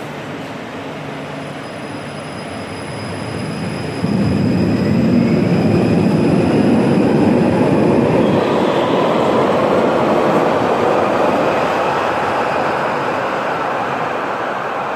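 A Stuttgart Stadtbahn light-rail train running past the platform. It grows louder, jumps in level suddenly about four seconds in, then slowly fades toward the end.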